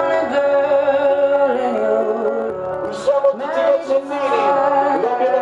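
Loud dance-party music with a sung vocal line holding long notes.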